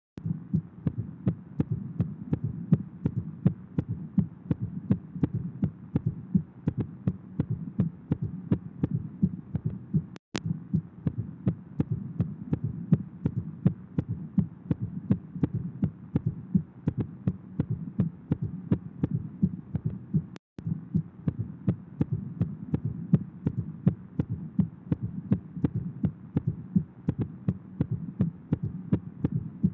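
Recorded heart sounds heard on auscultation: a steady, regular run of heartbeats, broken by two brief dropouts about 10 and 20 seconds in.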